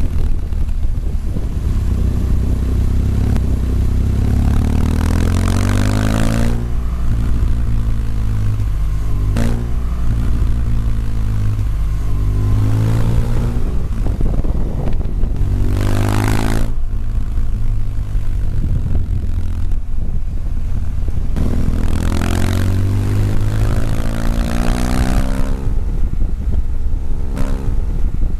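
Motorcycle engine heard from the rider's own bike, accelerating. Its pitch climbs steadily and then drops sharply three times as it shifts up through the gears.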